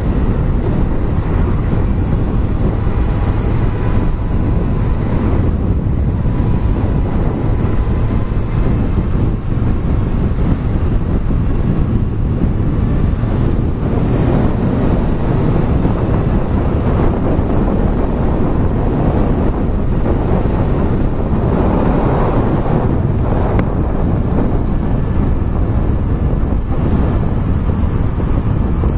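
Heavy wind buffeting the camera microphone while riding a Honda CBR1100XX Super Blackbird, with the motorcycle's inline-four engine running steadily underneath.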